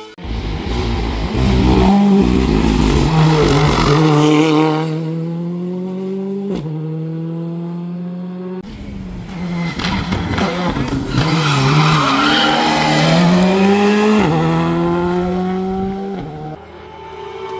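Race car engine under hard acceleration, the revs climbing steadily and dropping sharply at gear changes, with a sharp crack at one shift about six and a half seconds in.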